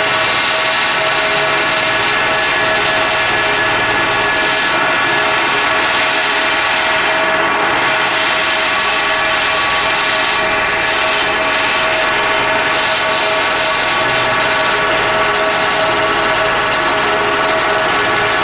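Pneumatic air hammer driving a tube-beading tool against the steel fire-tube ends in a steam locomotive boiler's tube sheet, hammering steadily without a break. It is beading the tube ends, rolling them over so they stay the tube sheet.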